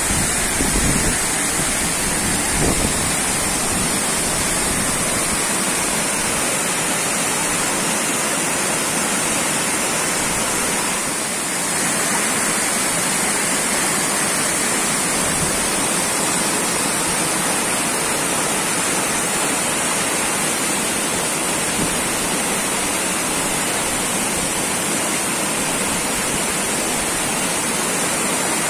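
Waterfall: a steady, loud rush of falling and splashing water.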